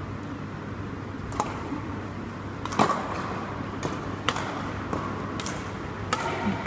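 Badminton rackets striking a shuttlecock during a doubles rally: about eight sharp hits, loudest about three seconds in.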